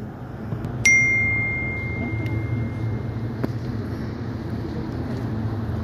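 A small bell struck once about a second in, ringing on one clear high note that fades away over two to three seconds, over a steady low hum of city background noise.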